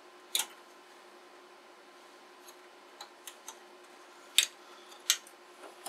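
A few sharp plastic clicks and clacks as wiring-harness connectors are unplugged and the motherboard tray of an IBM EduQuest 55 is handled. The loudest comes about half a second in, followed by a few light ticks and two more sharp clicks near the end.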